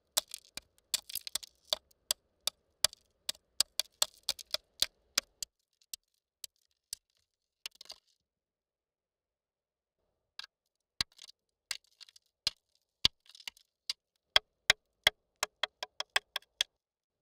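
A stone tapping on glacier ice, picked up by a hydrophone in a pool of water in the ice: a run of sharp, irregular clicks, several a second. The tapping pauses for about two seconds midway, then resumes.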